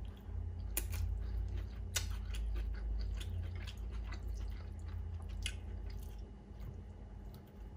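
Close-up chewing of a mouthful of pho rice noodles, with a few sharp wet clicks.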